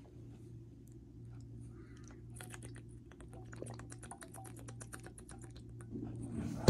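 Typing on a laptop keyboard: a quick run of key clicks in the middle, over a steady low room hum, ending in a single loud knock.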